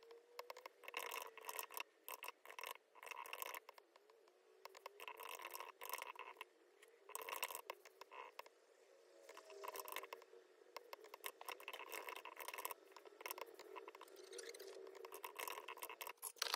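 Typing on a slim, low-profile wireless keyboard: quick runs of light key clicks in bursts of a second or two with short pauses between them.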